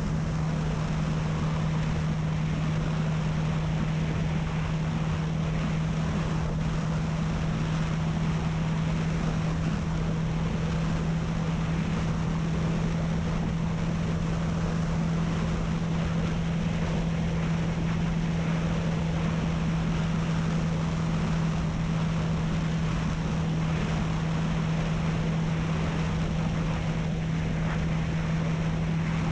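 Honda CB300F's single-cylinder engine running at a steady cruise, one constant low note with no change in pitch, under a steady rush of wind noise on the microphone.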